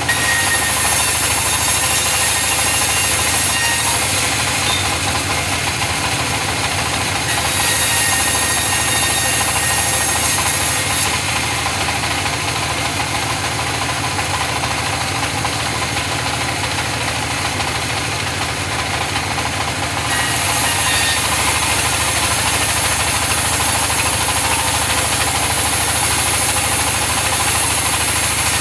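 Engine-driven wood saw running steadily while sawing mahogany. Three times a bright hiss of the blade cutting rises over the engine: at the start, around eight seconds in, and for a long stretch in the second half.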